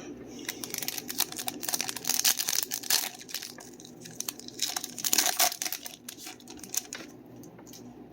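Crinkling of a foil trading-card pack wrapper and cards being handled, with many small clicks and rustles and two louder crinkly stretches about two and five seconds in.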